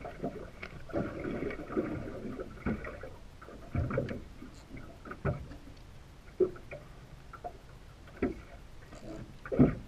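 Water lapping and slapping against the hull of a small drifting fishing boat, with irregular knocks and thumps.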